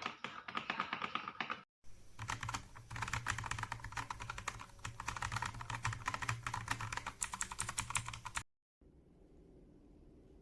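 Rapid typing on a mechanical keyboard fitted with Akko CS Jelly Starfish 50 g linear switches: a dense run of keystroke clacks. It breaks off briefly just before two seconds in and stops abruptly about eight and a half seconds in, leaving faint room noise.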